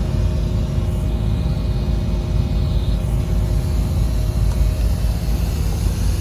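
Steady low mechanical rumble with a faint constant hum, like machinery or engine noise running nearby.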